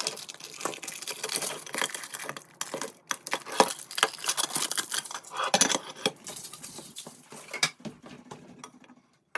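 An old glass Pyrex pie dish in its metal holder being handled and turned over, giving irregular light clinks, taps and rubs.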